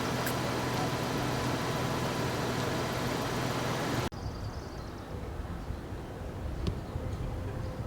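Steady motor noise with a low hum that cuts off abruptly about four seconds in, giving way to a quieter low rumble of outdoor background.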